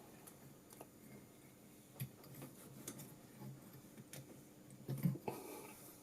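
Faint, scattered clicks and knocks from handling the parts of a condenser microphone kit as the microphone is turned and fitted in its mount. The clearest knocks come about two seconds and five seconds in.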